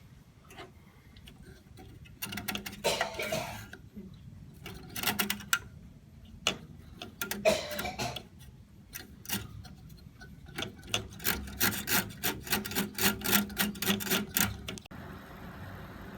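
Hard objects being handled: bursts of clicks and scraping, with a fast run of several clicks a second near the end.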